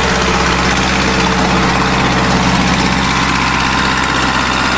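A vehicle engine running steadily at a low, even speed.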